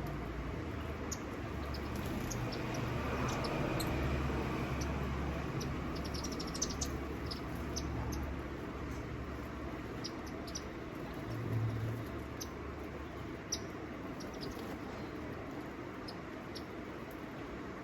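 Small birds giving many short, high chirps and ticks, scattered irregularly over a steady low rumble.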